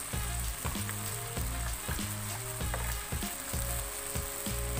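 Chilli paste with tomato sizzling steadily in hot oil in a wok, with a few light clicks of a metal spatula against the pan.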